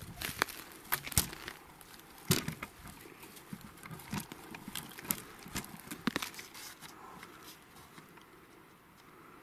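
Irregular knocks, clicks and crackles of handling and movement in dry brush, close to the microphone. They come thick for about six seconds, then thin out and it goes quiet.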